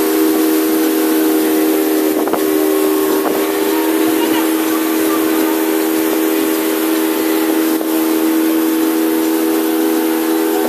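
Motorboat engine running steadily while the boat is under way, a constant drone with the rush of wind and water over it.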